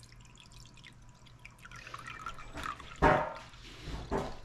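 Ice water poured from a glass measuring cup into a glass bowl, trickling and dripping, with two louder knocks about three and four seconds in. The water is there to cool and set a freshly poured tallow candle.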